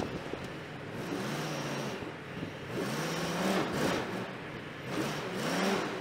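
Ford F250 pickup's engine revving up and easing off several times as the two-wheel-drive truck tries to drive out of soft ground where it is stuck.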